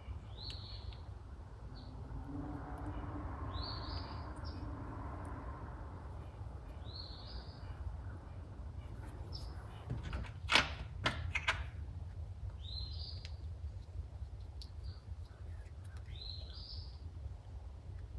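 A bird repeating a short chirp about every three seconds, over a steady low hum. A few sharp clicks come together a little past the middle.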